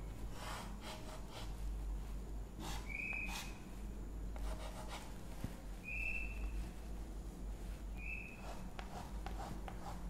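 Chalk being drawn on a blackboard: short scratchy strokes with three brief high-pitched squeaks, each about half a second long.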